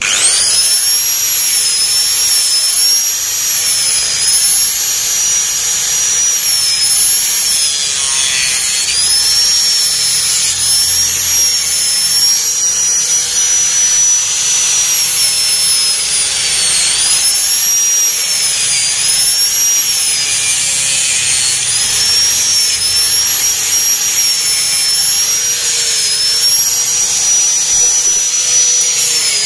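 Small handheld angle grinder starting up abruptly and running at full speed with a loud, high, steady whine. Its pitch dips and recovers several times as the disc is pressed against the edges of the concrete-filled mold.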